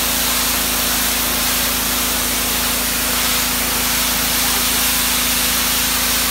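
Ryobi 2900 psi gas pressure washer at work: a loud, steady hiss of the high-pressure water jet striking a concrete driveway, over the constant hum of the running engine.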